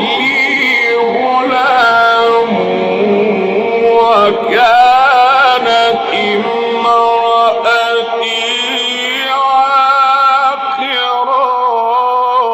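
A man's voice in Quran recitation, chanted melodically with long held, wavering notes and ornamented runs.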